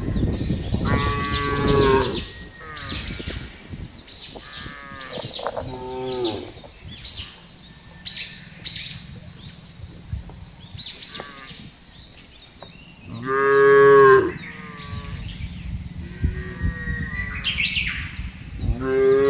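Cattle mooing several times, the loudest a long moo about two-thirds of the way through and another near the end.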